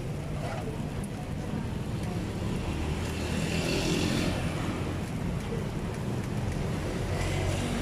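Steady street traffic noise, a low engine rumble with hiss, swelling louder about halfway through as a vehicle passes.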